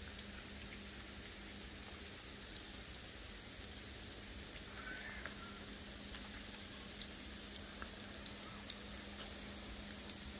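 Sleet (small ice pellets) falling: a faint, steady hiss with a few light ticks scattered through it.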